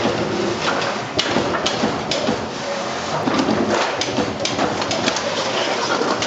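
AEM Unicore transformer-core cutting and forming machine running, feeding out cut steel laminations for a large core: a steady mechanical noise broken by frequent, irregular sharp clacks.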